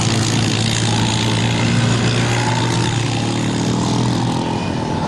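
Quad bike engine running at a steady pitch.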